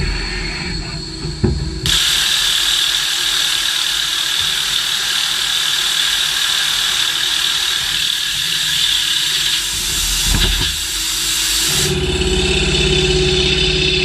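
Machining equipment running, with a steady hissing noise that starts abruptly about two seconds in and cuts off just as suddenly near the end, giving way to a lower, steady machine hum.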